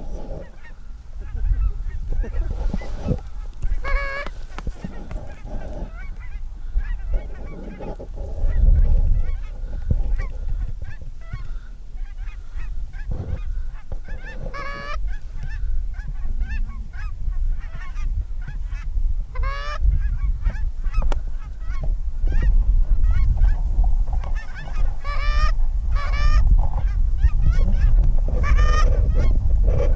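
Geese honking at intervals, in single honks and short runs that grow more frequent near the end, over a steady low rumble.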